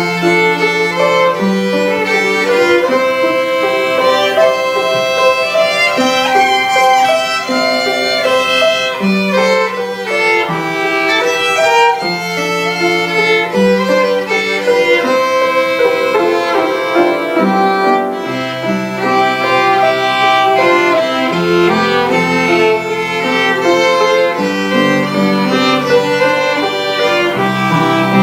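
Two violins playing a duet in held, bowed notes, with lower notes from an accompanying instrument beneath them.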